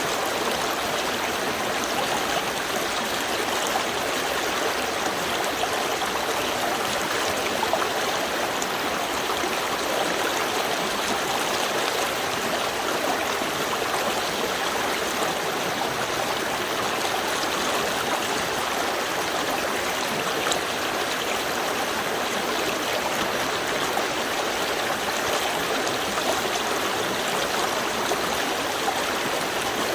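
Small river stream flowing steadily, an even rush of running water with no change over time.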